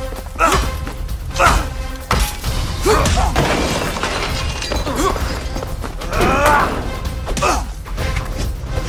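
Film soundtrack music with several sudden impact and crash sounds.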